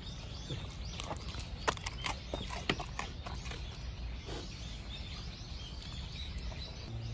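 Outdoor background noise with a steady low hum and scattered short clicks and taps, the sharpest a little under two seconds in and again near three seconds.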